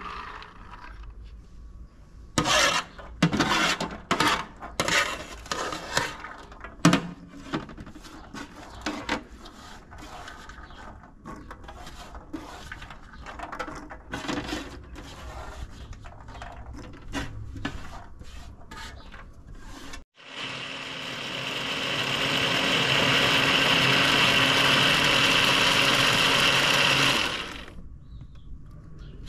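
A plastic bowl scraping and knocking on a perforated aluminium tray as pomegranate arils are scooped up, a long run of sharp clicks and scrapes. About two-thirds of the way in, an electric countertop blender starts, builds up over a couple of seconds and runs steadily as it juices pomegranate seeds, then cuts off suddenly.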